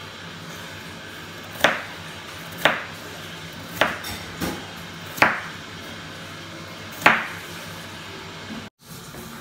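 Chef's knife chopping peeled potatoes on a bamboo cutting board: about six separate sharp chops at uneven intervals of roughly a second, the last the loudest, over a low steady hum.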